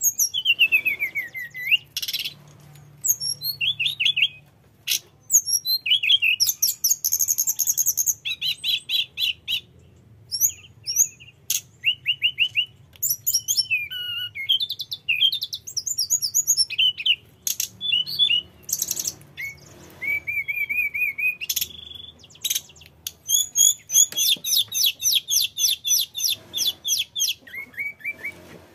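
Hill blue flycatcher singing a long, continuous, varied song: clear whistled phrases that slide down in pitch, mixed with fast runs of high repeated notes and trills.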